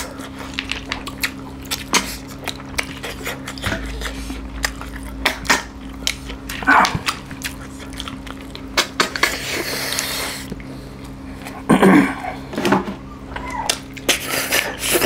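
Close-up eating of snail curry by hand: frequent small clicks of snail shells on plates and fingers, with loud sucking slurps as snails are sucked from their shells, the loudest about seven and twelve seconds in. A steady low hum runs underneath.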